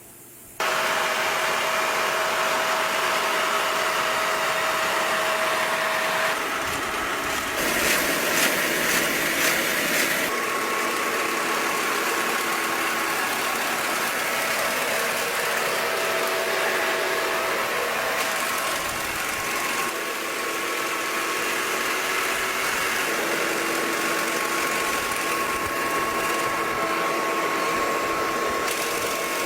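Farm machinery engine running steadily, with a constant whine over the engine noise.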